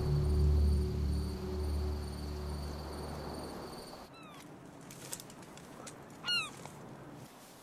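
Crickets chirping over a low steady drone that fades out after about three and a half seconds. Then birds give short sweeping chirps, one louder call about six seconds in, with a few faint clicks.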